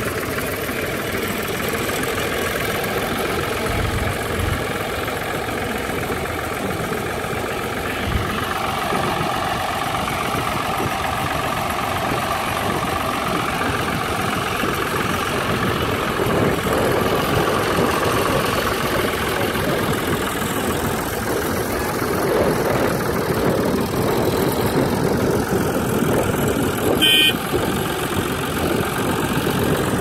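Blue Ford tractor engine running steadily while the tractor drives and turns with a mounted plough. The sound grows louder in the second half as the plough is working, with one brief sharp click near the end.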